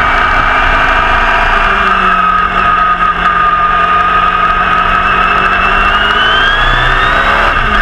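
Repco 830 V8 of a 1969 Brabham BT31 race car, heard from the cockpit at full racing volume. The engine note holds steady, climbs in pitch as the car accelerates from about six seconds in, then breaks briefly and drops near the end: an upshift.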